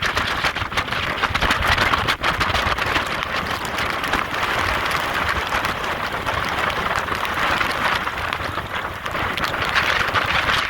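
Hurricane wind and heavy driving rain, a steady roaring hiss with gusts buffeting the microphone.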